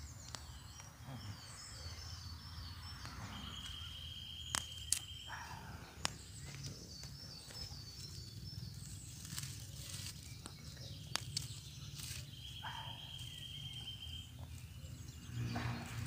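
Rural outdoor ambience: birds chirping, two long high buzzing calls of about two seconds each, and a few sharp snaps and crackles while charred corn husks are peeled beside a wood fire.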